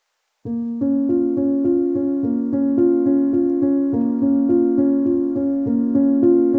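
Background piano music that starts about half a second in, a gentle pattern of notes at an even pace.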